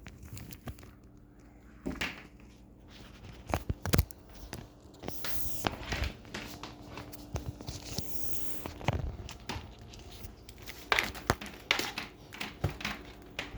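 Handling noise from a vacuum cleaner's power cord being unwound and worked loose from a tangle: scattered clicks and knocks mixed with brief rustling. The vacuum's motor is not running.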